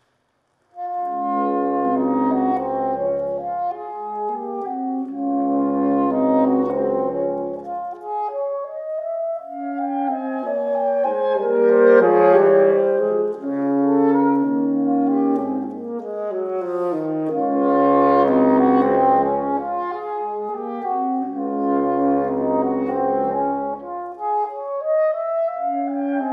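Saxophone quartet of soprano, alto, tenor and baritone saxophones playing classical chamber music. It comes in about a second in with long held chords separated by short breaks, moves into flowing lines in the middle, and returns to held chords with a deep baritone bass note beneath.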